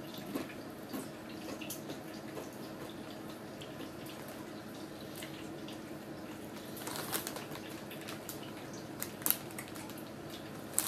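Faint, irregular crunching and crackling of Doritos tortilla chips being chewed, with a cluster of louder crackles about seven seconds in, over a steady low hum.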